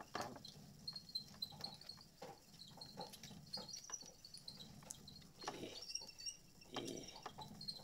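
Faint handling of puzzle pieces being poked out of their sheets: scattered small clicks and rustles with short, high squeaks.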